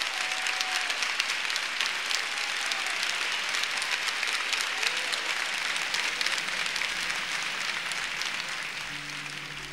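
Audience applauding, a dense steady clapping that fades away near the end as guitar music comes in.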